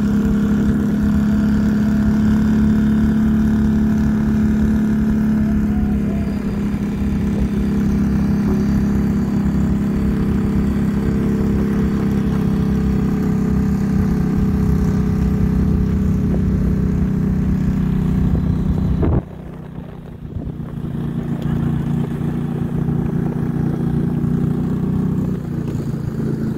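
A vehicle engine running at a steady pitch. About two-thirds of the way through, the sound drops away abruptly for a moment, then the engine carries on a little quieter.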